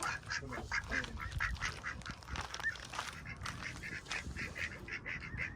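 Birds calling in a run of short, repeated chirps, several a second.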